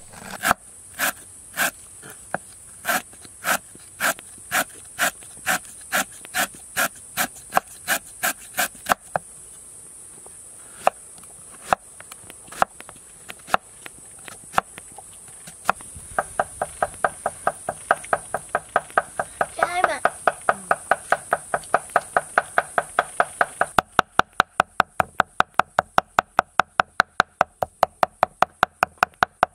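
A kitchen knife chopping on a wooden cutting board. It starts with steady strokes about two a second, thins to a few scattered strokes, then breaks into fast chopping about four a second that turns into quicker mincing of meat near the end. Under it, until the last few seconds, a steady high hiss of insects.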